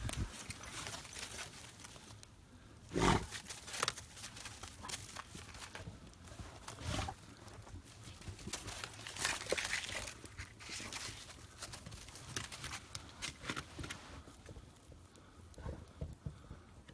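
A Finnish hound pushing into a den under snowy boulders: irregular scrabbling and rustling, with a loud sudden noise about three seconds in and a few smaller ones later.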